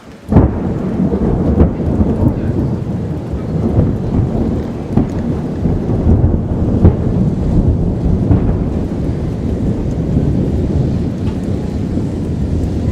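Thunder: a sudden loud clap about a third of a second in, followed by long, continuous rolling rumble with repeated sharper cracks.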